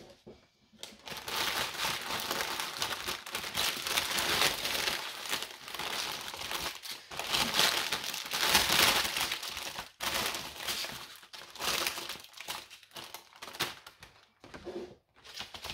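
Clear plastic wrapping and small plastic bags of diamond-painting drills crinkling as they are unwrapped and handled. A near-continuous crackling rustle that breaks into separate crackles near the end.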